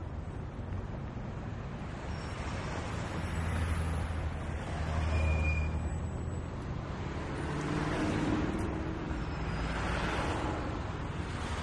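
Continuous city street traffic at rush hour: a steady wash of car and engine noise, with heavier vehicles rumbling past in swells about four seconds in and again near the end.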